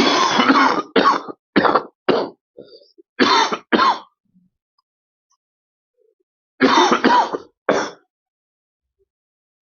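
A person coughing in fits: a run of harsh coughs lasting about four seconds, a pause, then three more coughs about seven seconds in. A night-time coughing fit.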